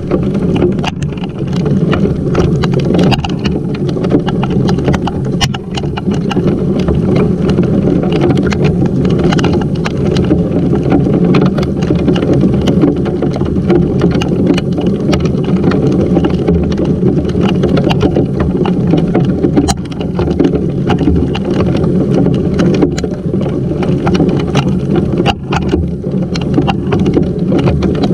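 Heavy rain and hail from a hailstorm pelting a GoPro and the wet wooden bench it sits on: a loud, steady rushing patter with many sharp ticks of stones and drops striking close by.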